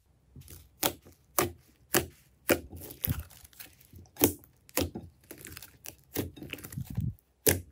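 Hands pressing and kneading a thick mass of slime in a glass bowl: a run of sharp pops, about two a second, as trapped air bursts out, with softer wet crackling between them.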